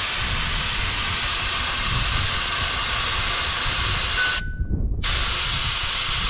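Air hissing steadily out of a 4WD tyre through a dial-gauge tyre deflator on the valve stem, letting the pressure down from about 40 psi toward 20 psi for soft sand. The hiss stops briefly about four and a half seconds in, with a short thin whistle just before, then starts again.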